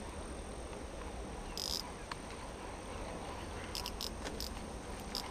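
Crickets and other insects trilling steadily, with a few short high chirps, most of them around four seconds in, over a low rumble.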